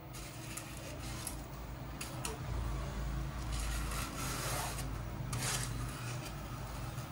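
Cut foam wing sections handled and turned in the hands, the foam rubbing and scraping against skin and against other foam pieces, louder in the middle, with a few small ticks.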